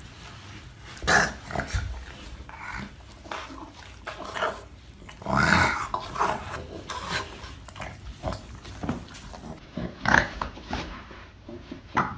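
A dog vocalizing in short, irregular bursts, loudest about five and a half seconds and ten seconds in.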